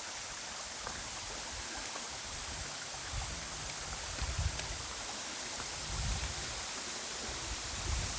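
Steady rushing of a rocky stream running over the top of a waterfall, an even hiss, with a few brief low bumps.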